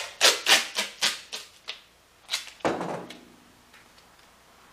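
Duct tape pulled off the roll in a quick run of short rips, about four a second, then two heavier strokes as it is pressed down onto the steel fuel tank, the last with a dull thump.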